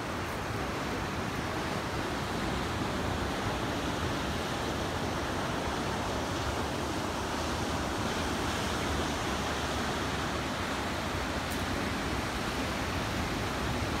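Ocean surf washing over a rocky reef, heard as a steady, even rush of sea noise.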